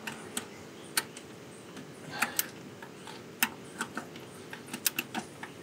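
Hand ratchet clicking in short, uneven runs as the water pump's mounting bolts are tightened a little at a time.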